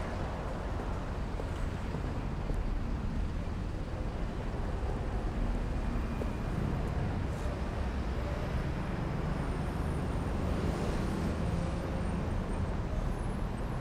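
Steady city street traffic rumble: the continuous sound of car traffic on the street, with no single event standing out.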